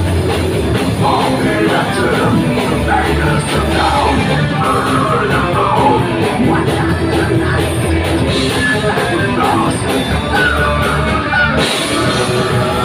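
Live heavy metal band playing loud: electric guitars, drum kit and keyboard, with a vocalist singing and yelling into a microphone. Near the end the band stops for an instant and crashes straight back in.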